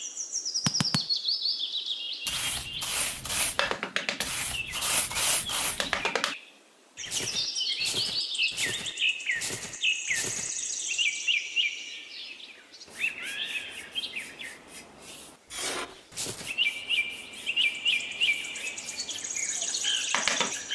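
Small birds chirping steadily, over repeated scraping strokes of a small metal garden trowel digging into damp sand. The scraping comes in a dense run, then separate strokes, then a few more later.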